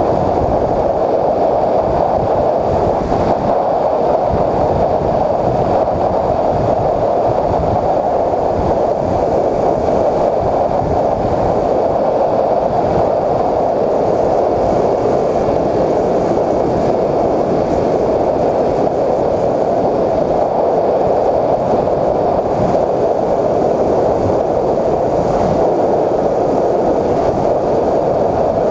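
Steady, muffled rush of airflow with electric motor and propeller noise from a Bixler 3 foam RC plane in flight, as picked up by its onboard GoPro camera.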